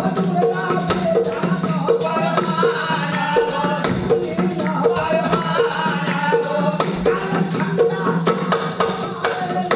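Pamariya folk song from Mithila: a male voice singing to small double-headed hand drums, which keep a steady beat of about two strokes a second.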